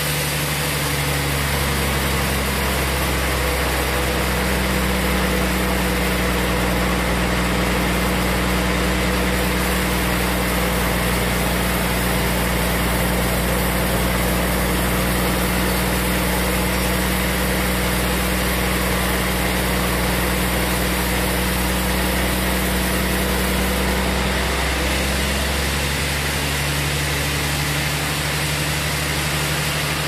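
Large band sawmill running with a steady mechanical hum as its blade saws through a big trembesi log. The hum's pitch shifts about a second in and shifts back near the end.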